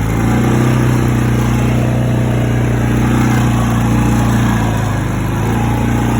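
A motor vehicle's engine running steadily with a low hum, easing slightly about five seconds in.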